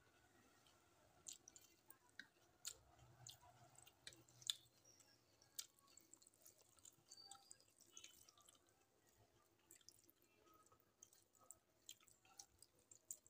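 Quiet wet squishing and scattered sharp clicks of fingers mixing cooked rice with dal on a metal plate, eaten by hand.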